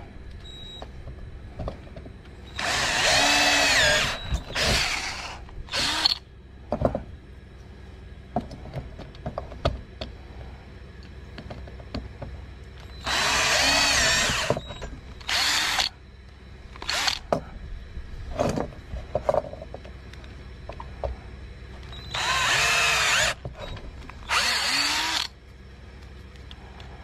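Electric drill run in several short bursts of one to two seconds, its motor pitch rising and falling with each run, drilling out the eyelet holes of freshly cast lead sinkers. Light clicks and knocks of handling come between the bursts.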